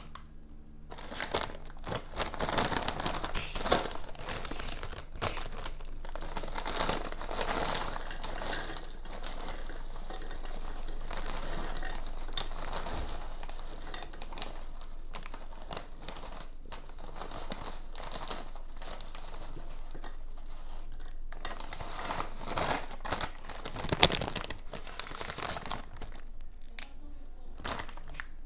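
Plastic Takis chip bag crinkling as rolled tortilla chips are poured and shaken out of it onto a plate, a continuous rustle of dense small crackles with one louder crackle late on.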